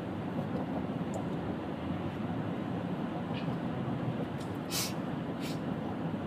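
Steady road and engine noise inside a moving car, with a few brief hisses in the second half.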